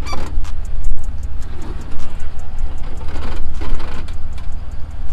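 Off-road vehicle engine running with a heavy, steady low rumble and a rapid, even ticking over it.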